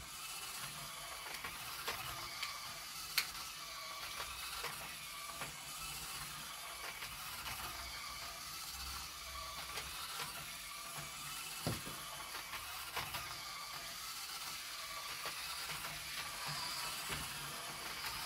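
Small battery motors and gearing of Motor Tomica toy trucks whirring steadily as they drive around a plastic track, with scattered sharp clicks.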